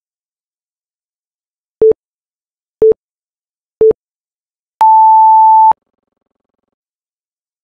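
Tabata interval timer countdown beeps: three short, lower beeps a second apart, then one longer, higher beep lasting about a second that signals the start of the 20-second work interval.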